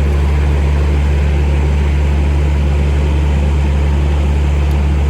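Air compressor's engine running steadily, a constant low drone with an even rushing noise above it, while it supplies air to blow pull rope through conduit.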